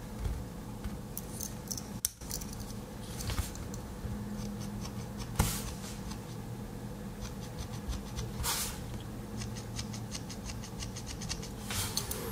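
Small metal clicks and light scraping of a Victorinox Classic SD Alox pocket knife being handled, its tiny spring-loaded scissors opened and worked, with a few sharper clicks and, later, runs of fine rapid ticks.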